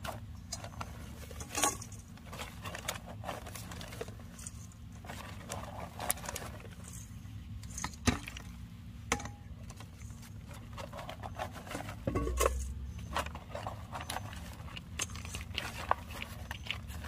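Stainless steel bowl scooping potting soil from a plastic bag and tipping it into plastic pails: scattered scrapes, clinks, bag rustles and soil pattering, over a steady low hum, with a dull thump about two-thirds of the way through.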